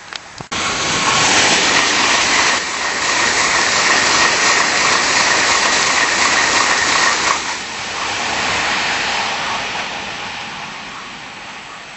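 Tokaido Shinkansen bullet train passing at speed on the viaduct: a loud rush of wheel and air noise with a steady high whine comes in suddenly about half a second in, drops away after about seven seconds and fades as the train recedes.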